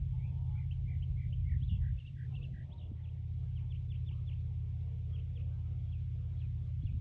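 Small birds chirping, many short high notes repeating throughout, over a steady low rumble.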